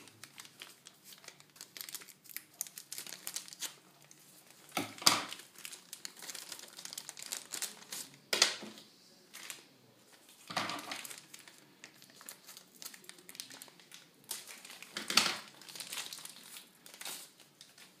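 Clear plastic packaging crinkling and rustling as it is handled and opened to free a SATA cable, with a few louder crackling bursts.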